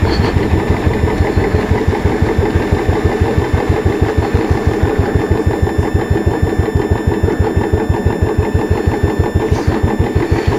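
Royal Enfield Bullet's single-cylinder engine idling, with an even, steady beat of about seven pulses a second.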